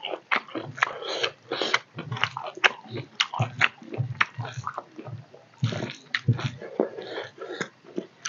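Close-up chewing of a mouthful of rice and fish curry: a quick, irregular run of wet smacks and clicks.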